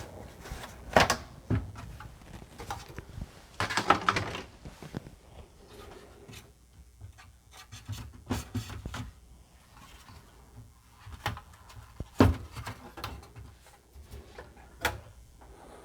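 Hands handling a Commodore 64's case and circuit board: scattered clicks, knocks and rubbing, with a longer rustle about four seconds in and sharp knocks about a second in and near twelve seconds.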